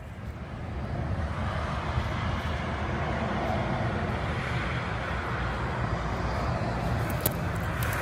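Motorway traffic noise from the M7: a steady rush of passing cars and trucks, swelling about a second in and then holding, with one sharp click near the end.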